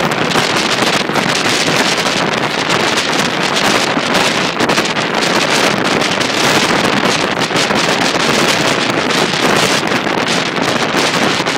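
Wind rushing over a phone microphone held out of a moving train's window, with the train's running noise underneath, loud and steady with small gusts.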